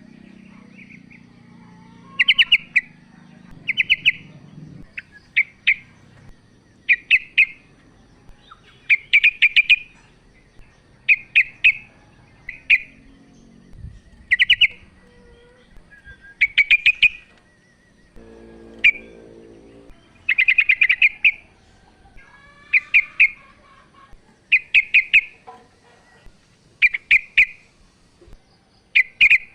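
Female sooty-headed bulbul (trucukan) calling for a male: short bursts of a few quick, sharp chirps, repeated about every two seconds.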